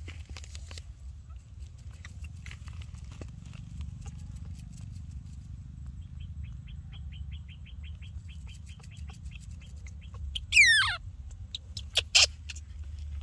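Baby macaque giving a loud squeal that falls steeply in pitch about ten seconds in, followed by a couple of short, sharp cries. Under it runs a steady low rumble, and a faint fast chirping of about five chirps a second comes for a few seconds before the squeal.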